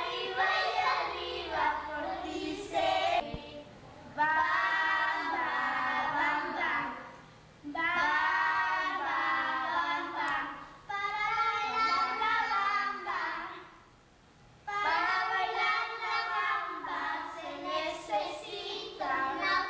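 Children singing together, several voices in long phrases with short breaths between them.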